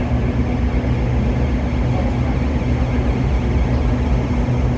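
Diesel locomotive engine idling with a steady, unchanging low drone.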